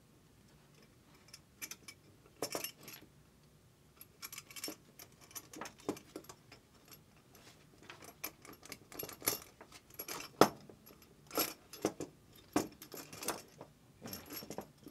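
Irregular metallic clicks and clinks from a steel conduit box and its cable connectors being handled while an extension cord is fitted through a connector into the box. They start about a second and a half in, and the sharpest knock comes a little past the middle.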